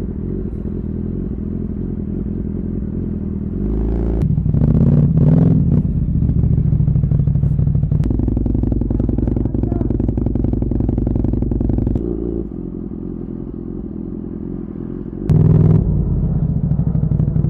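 Motorcycle engine running steadily, its revs stepping up about four seconds in, dropping back around twelve seconds, and rising again near the end.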